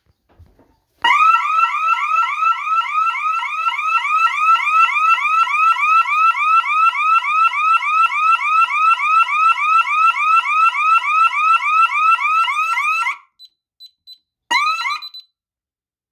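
DSC security alarm siren sounding a rapid rising yelp, about four sweeps a second, after an interior motion zone was tripped. It cuts off suddenly about thirteen seconds in, followed by a few short high keypad beeps and a brief half-second burst of the siren.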